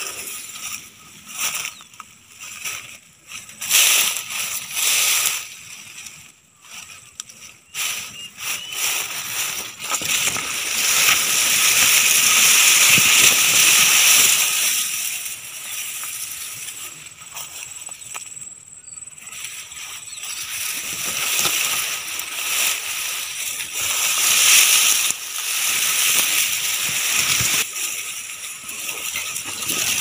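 Tall grass and reed stalks rustling and swishing as someone pushes through them, with stalks brushing close to the microphone. The swishing comes in uneven swells, loudest about ten to fourteen seconds in and again around twenty-five seconds.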